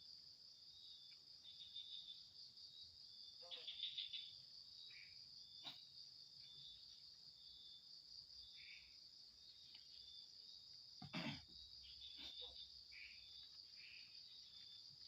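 Night insects, crickets among them, trilling steadily at a high pitch, with short chirps every few seconds. A few short knocks break through, the loudest about eleven seconds in.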